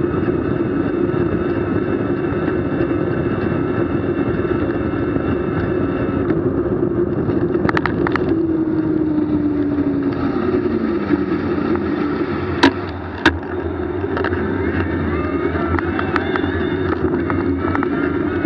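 Steady running noise of a vehicle in motion, with a hum that falls in pitch about halfway through and two sharp clicks a little later.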